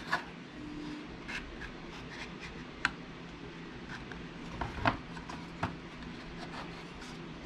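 Laser-cut wooden stand pieces being handled and fitted together by hand: light rubbing and scraping of wood on wood, broken by scattered small clicks and taps, the sharpest about three seconds in and two close together near five seconds.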